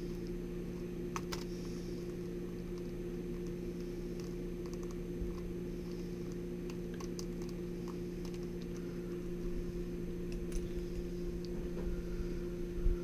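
Faint scattered clicks and taps of a small screwdriver and wire ends being worked into a stepper-motor controller's screw terminal block, over a steady low electrical hum.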